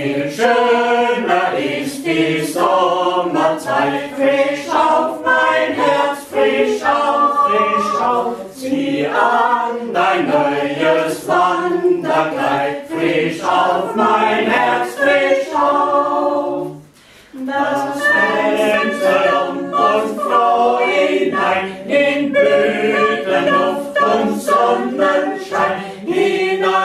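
A small group of voices singing a German spring song a cappella, unaccompanied, with a brief break between lines about two-thirds of the way through.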